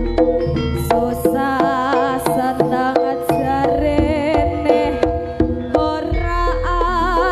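Live Javanese jaranan music played over a PA: a female sinden sings with a wavering vibrato over quick, steady hand-drum strokes and a held instrumental tone.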